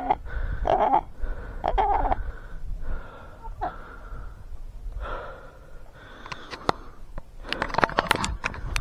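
A person panting hard, breathy gasps about once a second that grow weaker after about three seconds. Near the end comes a quick run of sharp clicks and rustles.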